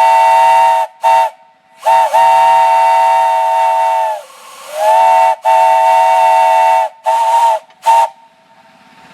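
A 3-inch Lonergan three-chime steam whistle on about 30–45 psi of steam, sounded in about six blasts: two long ones and several short toots. Each blast is a three-note chord that slides briefly up into pitch as the valve opens. Steam hisses in the gaps between some blasts.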